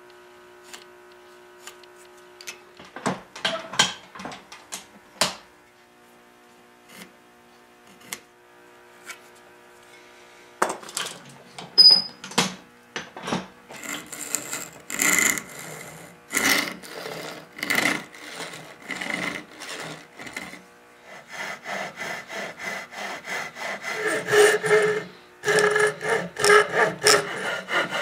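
Handsaw cutting into a new wooden block glued to the end of a stretcher. A few light clicks and knocks at first, then the sawing starts about ten seconds in, in slow strokes that quicken to two or three a second near the end.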